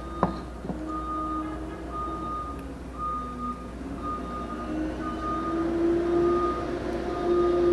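Truck's reversing alarm beeping about once a second while the truck backs up, its engine running underneath. A single sharp knock just after the start.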